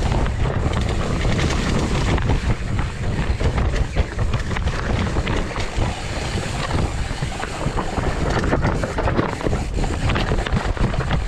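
Wind buffeting the microphone with a continuous low rumble and frequent short rattles and knocks, as of a mountain bike riding fast over rough trail.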